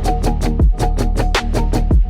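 Background music: an upbeat track with a steady drum beat, a low kick and hi-hat, under plucked, guitar-like notes.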